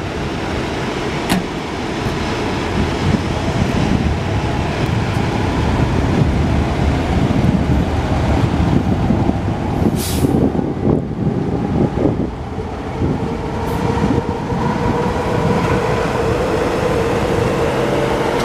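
Diesel engine of a Spartan ERV MetroStar fire pumper running steadily as the truck rolls slowly by, with a short, sharp air-brake hiss about ten seconds in. A steady tone joins the engine noise from about thirteen seconds.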